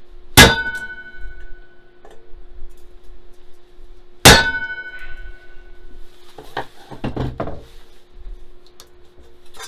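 Two hard hammer blows, about four seconds apart, on a cold chisel set against a metal wok, denting riffles into it. The wok rings like a bell after each blow. Later come a few rougher knocks and rattles as the wok is shifted in the bench vise.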